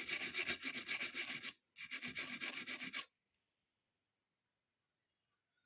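Fast back-and-forth brush scrubbing on a circuit board, about six or seven strokes a second, with a brief break about a second and a half in. It stops about three seconds in, leaving near silence.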